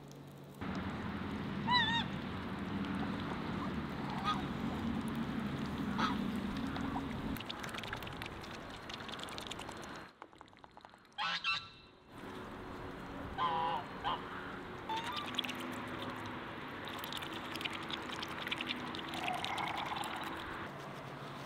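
Farmyard poultry calling: scattered short calls over a steady outdoor background, with a brief drop in the background about ten seconds in.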